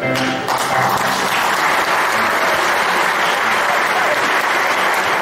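Audience applauding, a dense steady clapping that swells in about half a second in, as the music fades out at the start.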